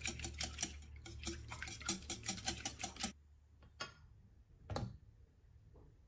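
A kitchen knife chopping quickly on a cutting board, about six even strokes a second, stopping about three seconds in; after that only two or three single knocks.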